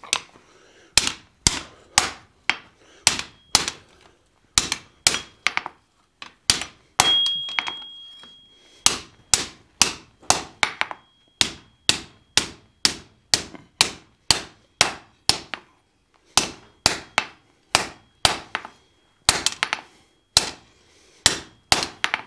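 Hand hammer striking a red-hot bar of salvaged coil-spring steel on an anvil to straighten it, about two blows a second in runs with short pauses. A high ringing tone hangs on after a blow about seven seconds in.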